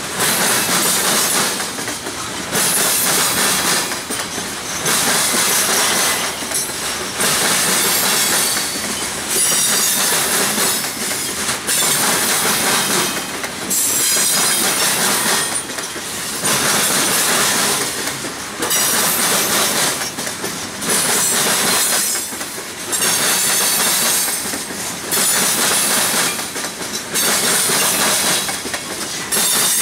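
Loaded ore hopper cars rolling over a railroad diamond crossing, their wheels banging across the crossing's rail gaps in a steady rhythm of about one car every two seconds, with some high wheel squeal.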